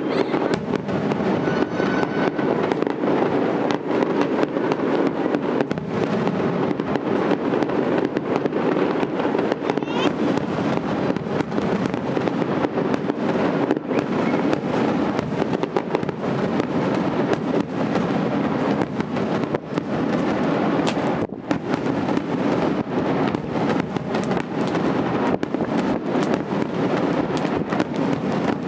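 Aerial firework shells bursting in quick succession, their bangs running together into a continuous rumble without pause.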